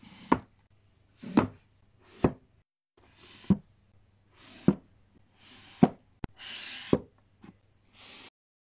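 Books being set down one after another onto a stack and slid upright into a row on a shelf: a short slide, then a knock as each one lands, about once a second, with one longer scraping slide about two-thirds of the way through. The sound cuts off shortly before the end.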